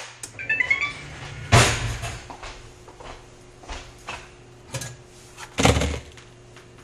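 Touchscreen toaster finishing its cycle: a short rising run of electronic beeps, then a sharp clunk. Small clicks and rattles follow as the toasted bagel halves are lifted out with tongs, with a louder clatter near the end as they land on a paper plate.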